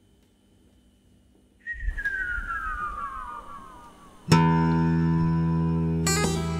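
Guitar music. After a near-silent start, a note slides steadily down in pitch for a couple of seconds. About four seconds in a chord is struck and rings on, with another strum near the end.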